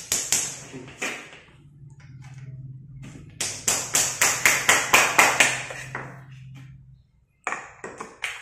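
Small hammer tapping on ceramic floor tiles to chip the old tiles loose, sharp ringing knocks in runs, fastest at about four a second in the middle.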